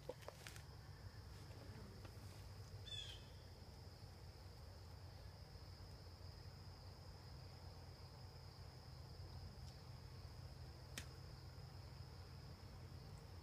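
Near silence with a faint, steady high-pitched trill of crickets over a low rumble. A brief chirp about three seconds in and a single sharp click late on.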